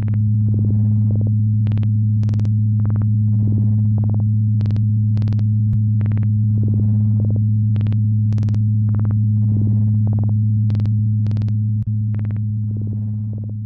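Loud steady low electronic hum, with a second tone an octave above it, broken by irregular sharp clicks and short buzzy crackles. It starts fading out near the end.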